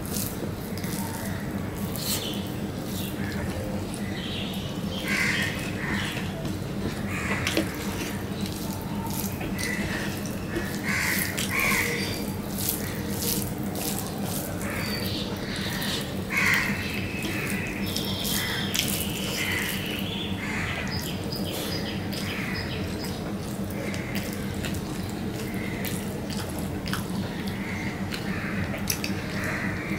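Close-up eating sounds of a man mixing rice with mashed taro-leaf greens by hand on a steel plate and chewing with his mouth open: wet squishing, smacking and lip clicks, repeated throughout over a steady low hum.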